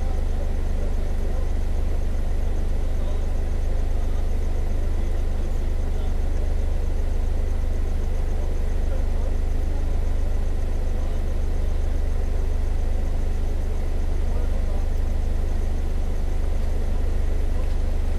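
Steady airliner cabin noise: the constant low drone of the jet's engines and air, with no rise or fall and a faint thin steady whine above it.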